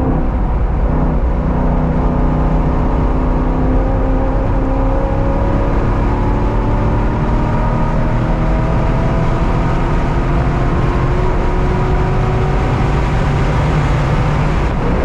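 Car engine running hard on track, its pitch climbing slowly over several seconds as it pulls through a gear, over steady road and wind noise.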